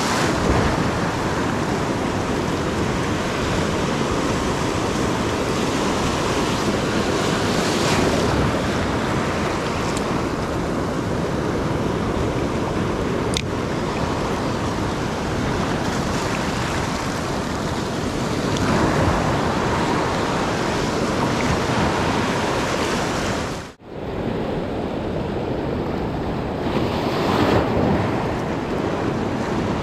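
Sea surf washing in over shoreline rocks: a continuous rush of breaking waves and foaming water that swells and eases, cutting out for a moment about three-quarters of the way through.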